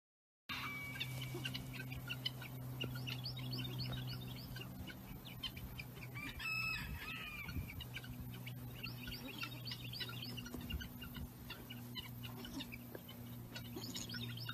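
Farmyard background of chickens clucking and calling, with one louder, drawn-out call about six and a half seconds in. Many quick bird chirps run throughout, over a steady low hum.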